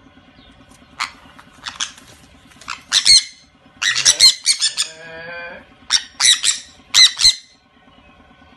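Sun conures squawking: short, loud, shrill shrieks in quick clusters, with a lower, wavering call about five seconds in.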